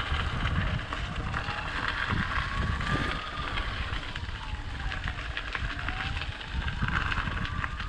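A siren wailing slowly up and down, about one rise and fall every five seconds, over a steady low rumble of wind on the microphone.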